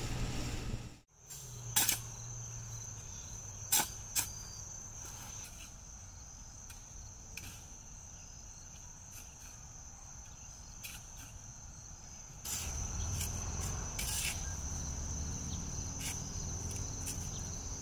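Insects trilling in one steady high tone, with a few sharp knocks of shovels striking into dirt, the loudest about two and four seconds in. A low rumble joins for the last five seconds.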